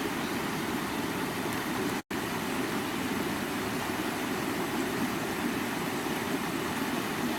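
Stream water running in a steady, even rush, cut by a brief dropout to silence about two seconds in.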